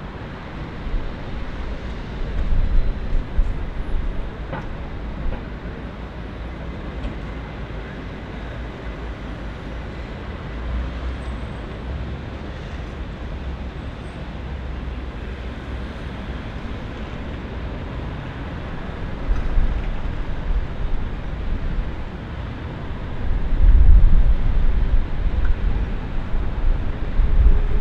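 Airbus A319-100 twin-jet landing and rolling out on the runway: steady jet engine noise, with louder low rumbling surges a few seconds in and again near the end.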